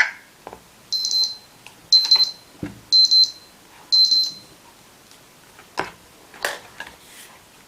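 Electronic sound effect from a KIDsREAD talking pen: four short, high beeps, one a second, followed by a few sharp clicks.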